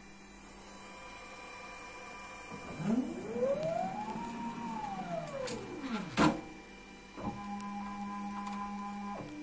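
Electric clamp drive of a desktop injection molding machine whining as the mold closes: the pitch rises and then falls over about three seconds as the platen speeds up and slows down, ending in a sharp clack as the mold halves meet. About a second later the machine's drive runs at a steady whine for about two seconds, then stops, over a low steady hum.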